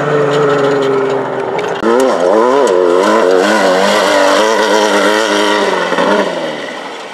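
Off-road race buggy's engine at high revs, holding a steady note, then revving up and down quickly as it crosses the whoops, and fading away near the end.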